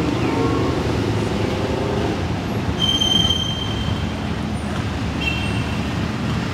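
Steady low rumble of city traffic, with a high thin squeal lasting about a second, three seconds in, and a shorter, two-toned squeal a couple of seconds later.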